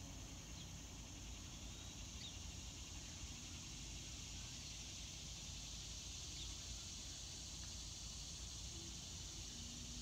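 Quiet outdoor ambience: a steady high-pitched insect chorus, with a few faint, brief bird chirps over a low background rumble.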